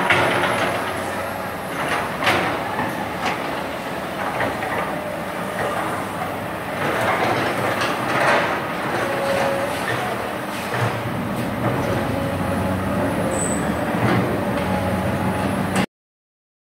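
Hydraulic excavator working: its diesel engine running steadily under load, with repeated metal clanks and a few thin squeals from the machine. The sound stops abruptly near the end.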